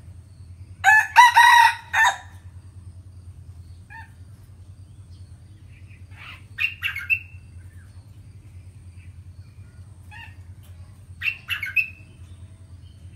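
Red junglefowl rooster crowing once, about a second in: a short crow of just over a second, its last note clipped off. Two small clusters of short, higher calls follow in the middle and near the end.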